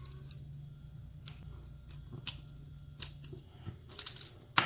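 Scattered small clicks and taps of hand tools and metal lock parts being handled on a workbench, with a louder clatter near the end as something is knocked over. A steady low hum runs underneath.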